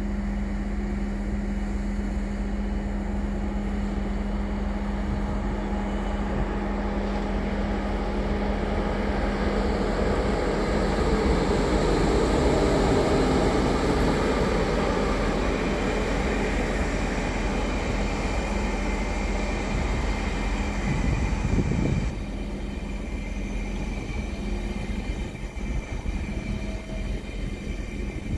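A train running through the station: a steady low hum under rolling rail noise that builds to a peak around the middle, then drops away abruptly about twenty-two seconds in.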